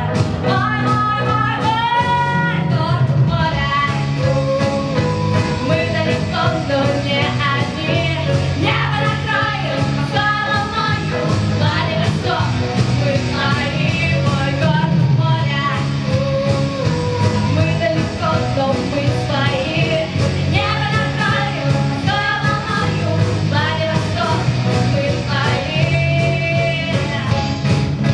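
Rock band playing a song: a singing voice carrying the melody over guitar and a steady drum beat.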